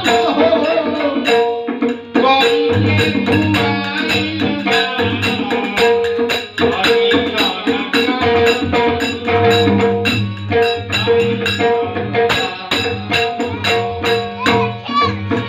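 Jhal, small brass hand cymbals, clashed and jingled in a fast, dense rhythm together with a tabla, whose right-hand drum rings at a steady pitch under deep left-hand strokes.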